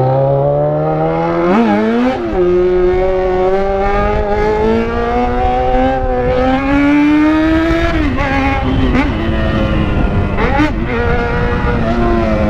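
Yamaha XJ6's 600 cc inline-four running very loud through a straight-pipe exhaust with no muffler, heard from the rider's seat under way. The engine note climbs with a quick gear change about two seconds in, rises steadily again, wavers with throttle changes around eight to eleven seconds, and falls off near the end as the bike slows.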